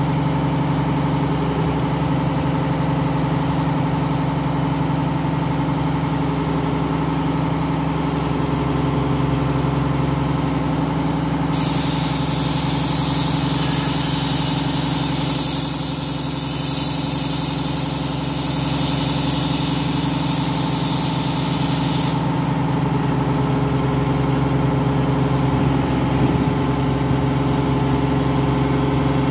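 Diesel engine of a truck-mounted mobile crane running steadily as the crane hoists a load. About twelve seconds in a loud hiss starts and lasts about ten seconds before cutting off.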